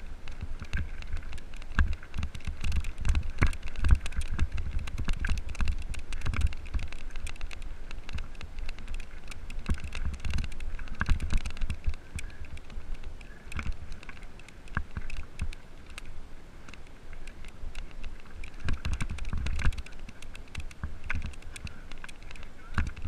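Mountain bike riding fast down a gravel forest trail: tyres crunching over loose stones and the bike rattling with a constant patter of sharp clicks, over a low wind rumble on the microphone.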